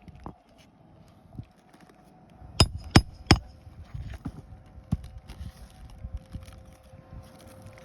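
Sharp knocks and clicks from hand tools working asphalt roof shingles: three loud knocks in quick succession a few seconds in, with smaller taps and scrapes around them.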